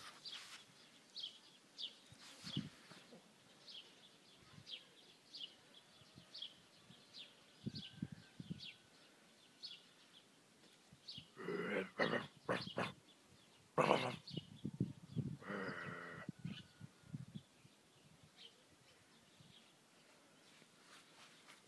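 Four-week-old Anatolian Shepherd puppy giving a run of short yips and whines about halfway through as it tugs at a plush teddy bear. Faint high chirps repeat about twice a second in the background.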